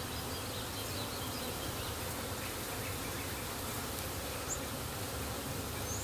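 Many honeybees buzzing in a steady, continuous hum while a package of bees is being installed into a hive.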